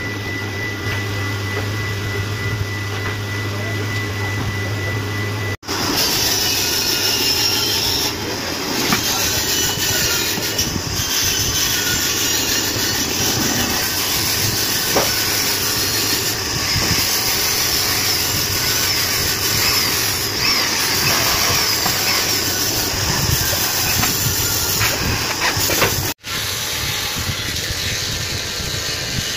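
Steady workshop machine noise. Through the middle stretch a handheld electric drill runs and bores into particleboard cabinet panels, louder and brighter, with a wavering motor whine that changes abruptly several times.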